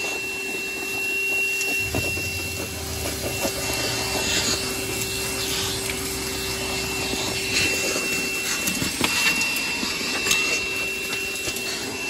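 Milwaukee 2-gallon cordless wet/dry vacuum running steadily with a high whine as its nozzle sucks dirt off a truck floor, with short crackles of debris going up the hose. A lower hum joins about two seconds in and drops away a few seconds later.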